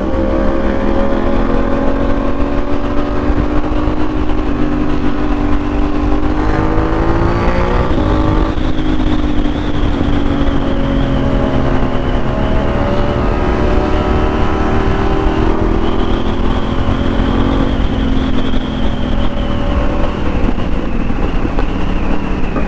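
Motorcycle engine running under load on the move, heard from the bike itself. Its pitch climbs slowly, drops sharply about eight seconds in, then holds fairly steady with slow rises and falls.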